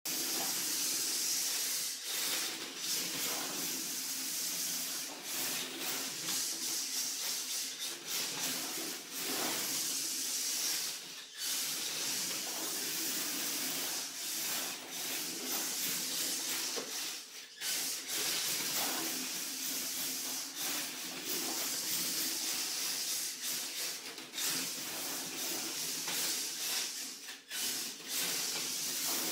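A stock HPI Sprint 2 Flux RC drift car with a 5700kV brushless motor, running on a tiled floor: hiss of the hard T-drift tyres sliding over the tiles, mixed with the electric motor's whirr. The hiss runs steadily, broken by a few short drops where the car lets off.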